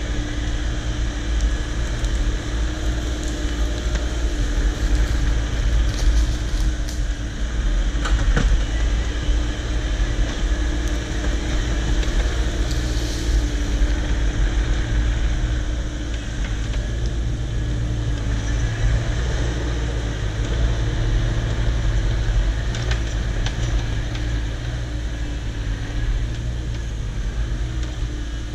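Diesel engine of a 2022 Cat 304 mini excavator running steadily under work, with a few sharp knocks about six to eight seconds in.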